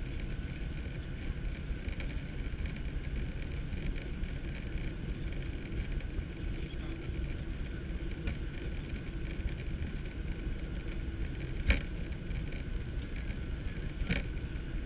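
Cabin noise inside a Ryanair Boeing 737-800 taxiing after landing: a steady low rumble of the engines and airframe with a faint steady hum. Two short knocks come near the end, a little over two seconds apart.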